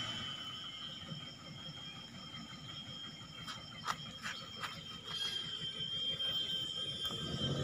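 Faint distant pickup truck engine, barely above a quiet outdoor background, with a steady high-pitched whine and a few sharp clicks around the middle.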